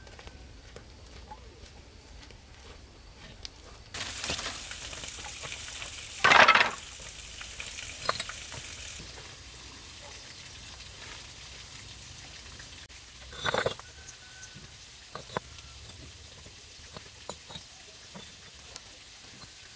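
Bricks being laid in wet, gritty mortar: light clicks and rough scrapes of brick on brick and mortar, with two louder scrapes about six and thirteen seconds in.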